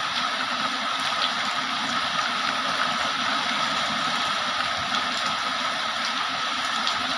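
Heavy rain falling steadily: a dense, even hiss with a few faint drop ticks.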